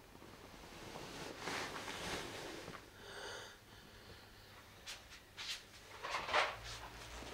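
A person breathing heavily in bed: a few long breaths, one short snort-like wheeze, soft clicks, and a louder exhale near the end, after which a low steady hum sets in.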